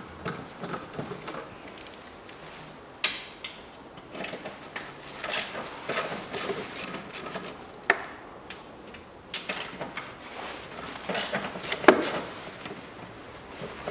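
Hand tool and plastic parts clicking, scraping and knocking while the lower half of a car's air filter housing is unbolted and removed, with a few sharp knocks, the loudest near the end.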